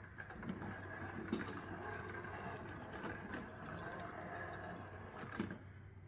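Homemade remote-control aircraft tug driving and turning under radio control: its two 350-watt DC electric motors, chain-driven to the wheels, make a steady faint whine, with a few light knocks. The drive eases off about five and a half seconds in.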